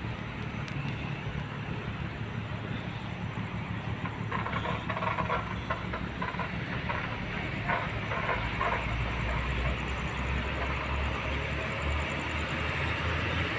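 Steady low engine drone, joined by a deeper rumble about eight and a half seconds in.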